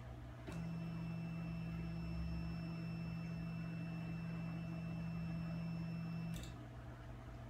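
GeeeTech GS2s Pro delta 3D printer's stepper motors driving its carriages upward together, lifting the print head toward the top of the frame: a steady whine that starts about half a second in and stops with a click about six seconds in.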